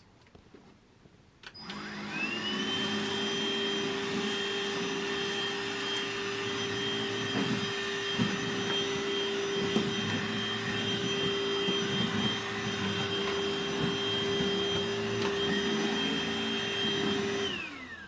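Grundig VCH 9929 L 18-volt cordless cyclonic stick vacuum switched on about a second and a half in, its motor rising to a steady whine. It runs while sucking up scattered grains from a wooden deck, then is switched off near the end, the whine falling as the motor spins down.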